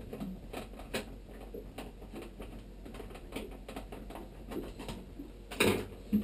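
Screwdriver backing out Phillips-head wood screws from a Vacuflush toilet's foot-pedal cover: a run of small irregular clicks and scrapes, with a louder knock about five and a half seconds in.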